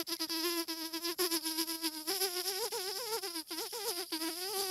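A young man imitating a mosquito with his mouth, hand at his lips: a continuous buzzing whine held mostly on one pitch, wavering up and down through the middle.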